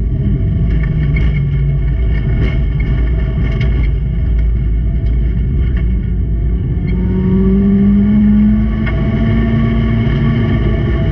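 Race car engines running hard during a grass-track race, with a heavy low rumble and the engine note rising as a car accelerates about two thirds of the way through; a few short knocks are heard over it.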